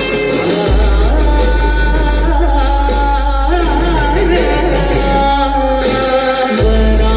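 A song with singing played loud through a DJ sound system during a sound check, over a heavy, steady deep bass that drops out briefly twice and comes back.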